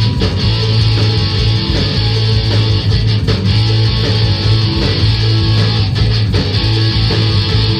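Live rock band playing loud: electric guitars over bass and a drum kit, with a strong bass line.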